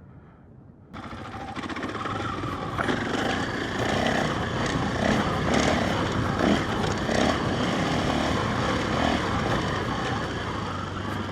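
KTM 500 EXC dirt bike's single-cylinder four-stroke engine running under way. It comes in abruptly about a second in and grows louder from about three seconds in.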